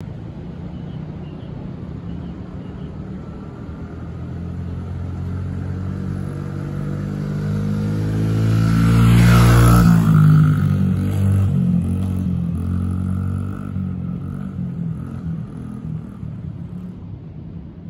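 Small dirt bike's engine running as it approaches, passes close by about nine to ten seconds in, then fades as it rides away.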